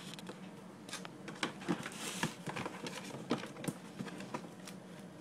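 Irregular small clicks, taps and rustles of hands handling a cardboard box and the packaging inside it, busiest about one to four seconds in.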